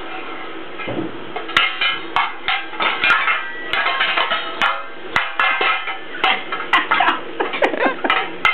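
Metal saucepan lids clanging and clattering as a baby bangs and turns them over: irregular ringing clangs, several a second, beginning about a second and a half in.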